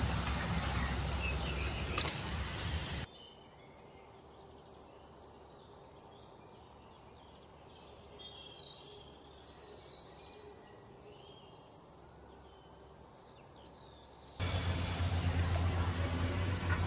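Hot oil sizzling and bubbling around frying gulab jamun balls in a kadai. After about three seconds it cuts to a quieter stretch with birds chirping, including a quick run of repeated chirps midway, and the loud steady noise returns near the end.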